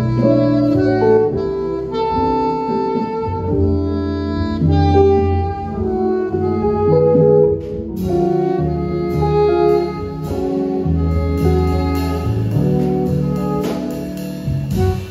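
Small jazz band playing live: a saxophone carries sustained melody notes over electric bass, keyboard and guitar. The drums join about eight seconds in, with cymbal strokes from then on.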